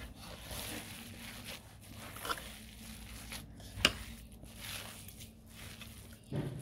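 Hands kneading a soft mash of boiled chana dal and shredded chicken in a metal pot: faint, irregular squishing and rustling, with one sharp click a little under four seconds in.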